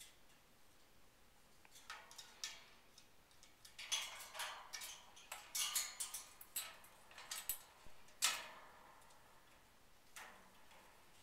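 Eclectus parrot climbing about a metal wire cage and its toys: an irregular run of short clicks, taps and light rattles, thickest a few seconds in, with the loudest tap near the end and one more shortly after.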